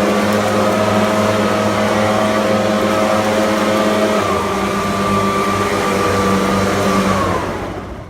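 Leaf blower running flat out with a steady high whine, then winding down and cutting off near the end.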